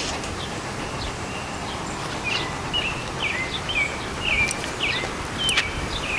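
A dog whining in short, high squeaky notes, two or three a second, starting a couple of seconds in, over a steady low background noise.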